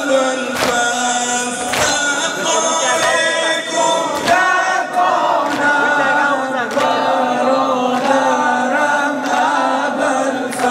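Mourning congregation chanting a Shia noha together in a sineh zani, with the dull thuds of hands striking chests, about once a second near the start and sparser after.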